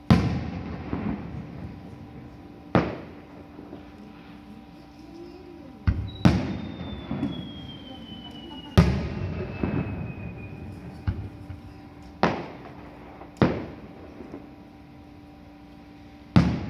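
Aerial firework shells bursting: about eight sharp bangs at irregular intervals, several trailed by crackling and echo. A long whistle falls slowly in pitch through the middle.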